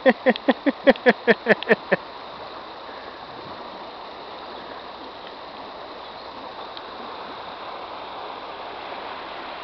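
Steady rushing of a shallow river over stones. In the first two seconds, a quick run of about ten short, loud pitched calls sounds over it.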